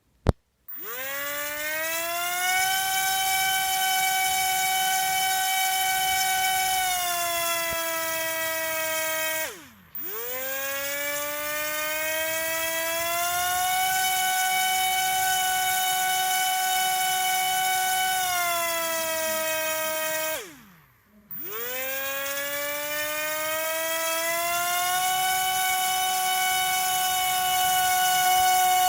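Drone's electric motors spinning up to a loud, steady, siren-like whine three times. Each time the pitch climbs within about a second, holds, then glides down and fades before the next spin-up.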